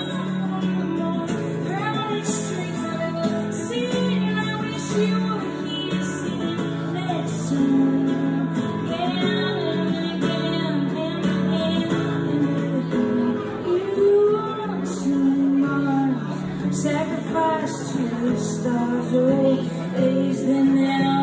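Acoustic guitar strummed with a singing voice over it, a live song performance through a small room's PA.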